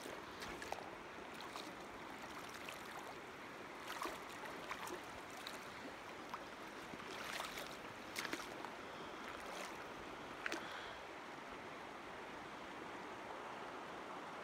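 Steady rush of a creek's flowing water, with a few faint sharp clicks scattered through it.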